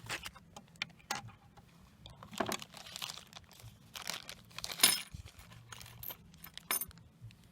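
Quiet handling noise between songs: scattered small clicks, taps and rustles, with a sharper click a little before five seconds in.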